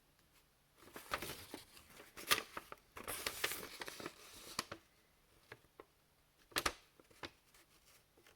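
Packaging being handled and opened: crinkling, rustling and tearing noise with sharp clicks, in two spells in the first half, then a few separate clicks and knocks, one louder about two-thirds of the way through.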